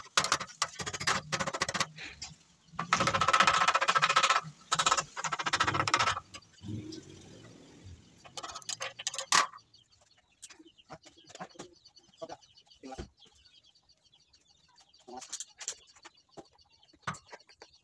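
Stick (arc) welding with a small inverter welder: the arc crackles loudly in bursts of one to two seconds with short pauses over about the first six seconds, then stops. After that come only faint scattered clicks and high bird chirps.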